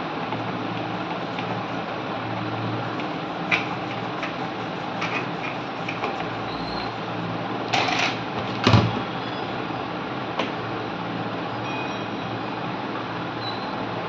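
Hard plastic clatter as a washing-machine control panel housing is handled and turned over: a few light clicks, then two louder knocks about eight seconds in. A steady hum runs underneath.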